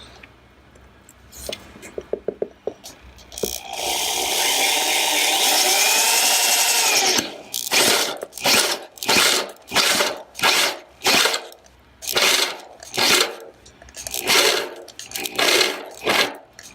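Electric drill running steadily for about three and a half seconds, its pitch wavering, then run in short bursts about one and a half times a second, boring holes through the housing of an LTE antenna panel.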